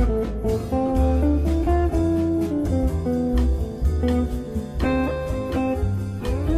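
Background music: a guitar-led instrumental with bass and a steady beat.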